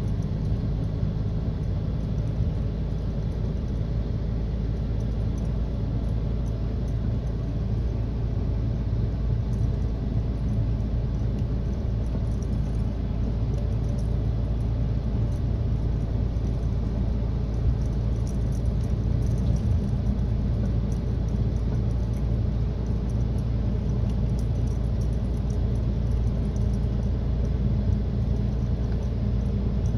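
Steady low engine rumble and tyre noise of a large vehicle cruising at an even speed, heard from inside its cab.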